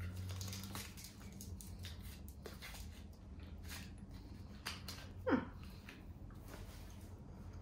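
Gum wrappers crinkling and crackling in quick, irregular bursts as two people peel open individually wrapped sticks of Oneo strawberry gum by hand. A brief falling squeak about five seconds in is the loudest moment, over a steady low hum.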